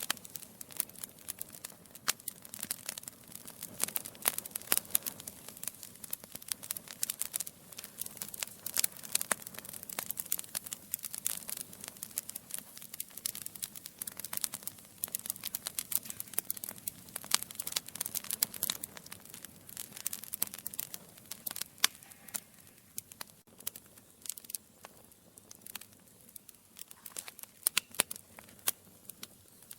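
Wood fire burning in a fireplace, logs crackling and popping in rapid, irregular clicks over a low, steady hiss of flames.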